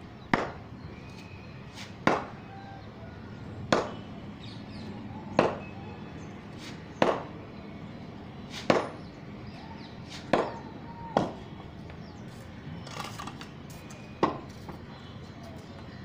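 Wooden cricket bat repeatedly hitting a ball hung from a rope, nine sharp knocks. They come at first about every one and a half to two seconds, then two in quick succession, and after a pause one last hit.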